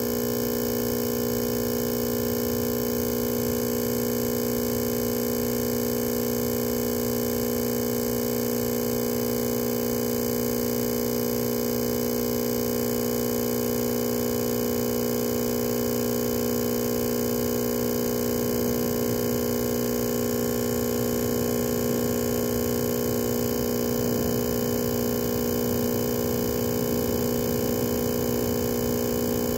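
Steady electrical hum made of several constant tones, the strongest low and mid-pitched, with no change in level.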